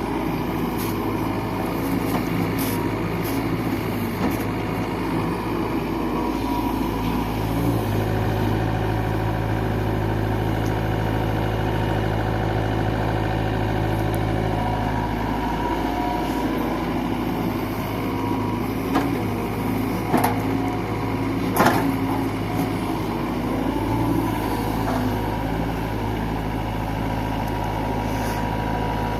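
JCB 3DX backhoe loader's diesel engine running steadily, its note growing heavier for several seconds at a time as the load comes on. A few sharp knocks come about two-thirds of the way through.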